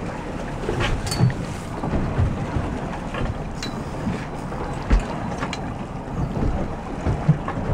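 Wind buffeting the microphone on an open boat at sea, with sea water moving around the hull and a few sharp knocks.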